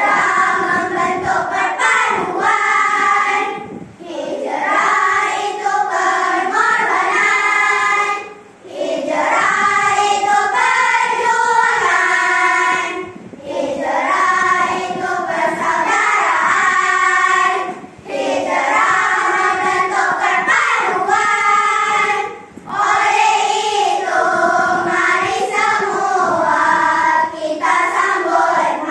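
A group of boys and girls singing a Malay nasyid together in unison, without accompaniment, in sung phrases of about four to five seconds with short breath pauses between them.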